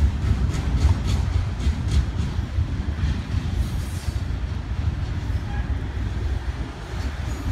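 BNSF double-stack intermodal freight train rolling past: a steady low rumble of wheels on rail, with a few faint clicks in the first few seconds.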